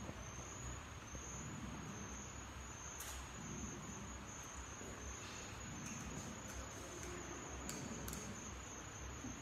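High-pitched, cricket-like insect trill that keeps going in short repeated pulses, over a low steady hum and hiss, with a few faint clicks.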